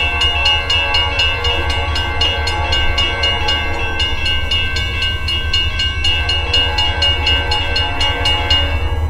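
Vintage Western Railroad Supply electro-mechanical crossing bell ringing in rapid, even strokes as the crossing is activated for an oncoming train, over the low rumble of the approaching train.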